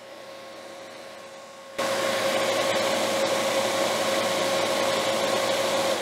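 Refrigerant recovery machine running, its compressor and cooling fan giving a steady whir with a constant hum. It is drawing the last vapor refrigerant out of an empty disposable tank. The sound gets much louder about two seconds in and stays level to the end.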